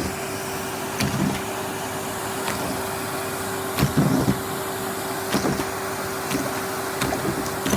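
Henry cylinder vacuum cleaner running with a steady hum. Its nozzle knocks and bumps several times, the loudest about four seconds in.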